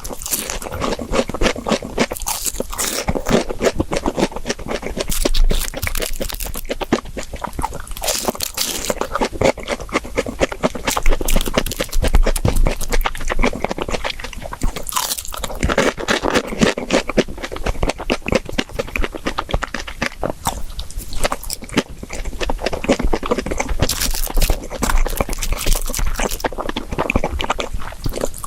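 Close-miked crunching and chewing of crispy deep-fried breaded pork cutlet (tonkatsu), the fried crust crackling continuously, with louder crisp bites every few seconds.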